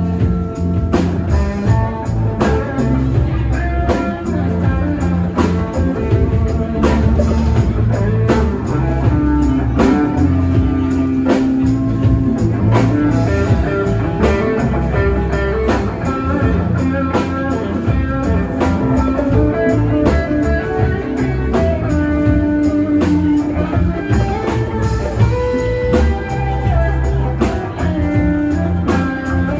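A live rock band playing an instrumental passage: electric guitar lead over bass and a drum kit keeping a steady beat.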